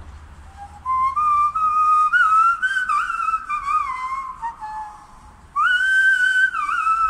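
Hand whistling through cupped hands: a clear, flute-like tune of sliding notes in two phrases, with a short break after about four seconds before the second phrase begins on a higher held note.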